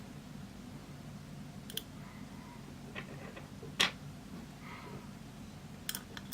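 A few small, sharp clicks and taps of tiny phone parts and tools being handled during reassembly, the loudest about four seconds in and two more close together near the end, over a faint low hum.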